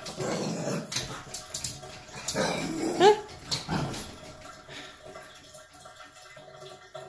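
French bulldog growling and grumbling at its own reflection as if at a strange dog, with a short, sharp bark about three seconds in, the loudest sound. The noise dies down after about four seconds.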